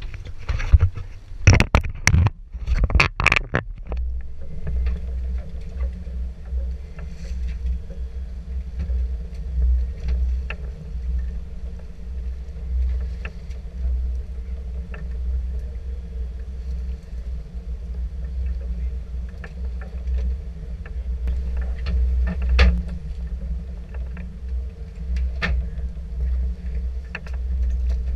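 Sportfishing boat's engine running steadily, a low rumble with a faint steady hum above it and scattered light knocks. In the first few seconds there are several loud sudden rushes and knocks.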